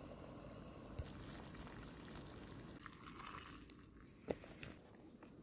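Hot water poured from a camping pot into a plastic bowl of instant noodles: a faint trickle and splash, with one short click about four seconds in.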